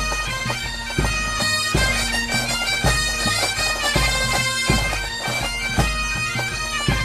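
Background bagpipe music: a melody played over a sustained drone, with a heavy drum beat about once a second.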